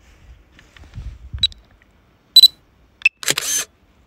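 Faint low thumps, then a short high beep and the DJI flight app's camera-shutter click sound as the Mavic 2 Pro takes a photo.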